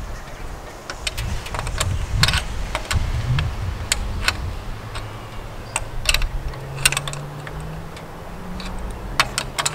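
Scattered sharp clicks and taps at an irregular pace from hands working with tools and the mast's clamp hardware, while a faint low hum slowly rises in pitch through the second half.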